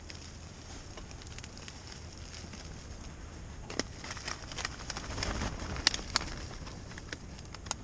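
Dry fish-fry breading being poured from its box into a plastic zip-top bag, the bag crinkling, with a scatter of sharp crackles through the second half.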